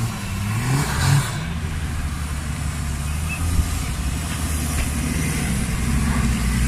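Off-road 4x4 engine revving up in the first second or so, then running with a steady low drone.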